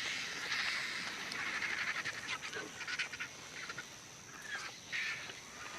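Vultures squabbling at a carcass, a chorus of many short, harsh squawks and cackles overlapping irregularly.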